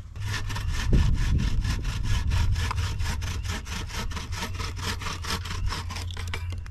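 Hand sawing through a log with a wooden-framed bow saw: fast, even back-and-forth strokes of the metal blade rasping through the wood. It stops shortly before the end.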